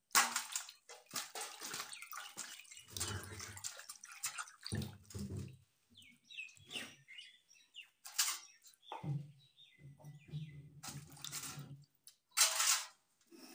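Water splashing and sloshing in a stainless steel bowl as peeled onions are rinsed by hand, in short, uneven splashes.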